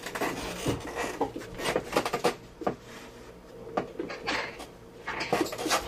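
Irregular light clicks and knocks of tools and small parts being handled, several a second at times, with no steady sound beneath.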